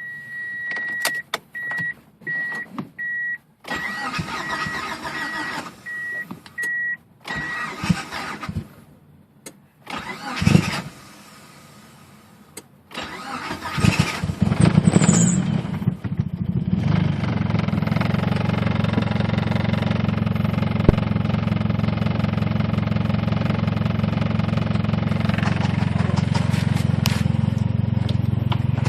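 A car's warning chime beeps repeatedly for the first several seconds. Then the 1G Talon AWD's turbocharged 4G63 four-cylinder cranks, catches and settles to a steady idle with a knocking that the owner can't place: rod knock, a dead lifter, a binding valve spring or a failed transmission.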